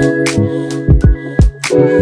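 Background music with a steady beat: deep bass kicks that drop in pitch, sharp snare hits and held keyboard chords.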